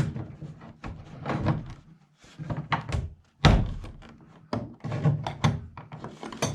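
An interior door and its hinge hardware being worked on: a series of knocks and thuds, the loudest about halfway through.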